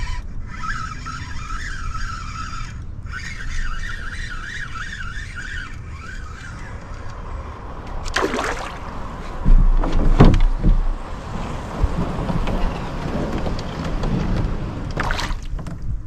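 Spinning reel cranking with a wavering whir for the first several seconds, then a hooked fish splashing at the surface three times as it is played toward the canoe. Wind rumbles on the microphone.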